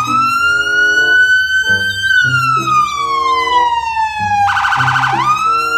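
Police siren wailing: a single tone rises, glides slowly down, breaks into a quick warble near the end, then climbs again. Children's background music plays under it.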